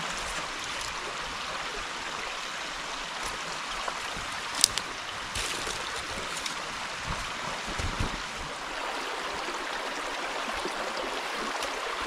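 A river stream rushing steadily, with one sharp click about four and a half seconds in.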